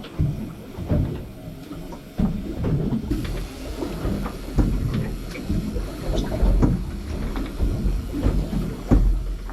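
Low rumble with irregular low thumps and knocks aboard a small fishing boat on open water: water slapping the hull as the boat rocks.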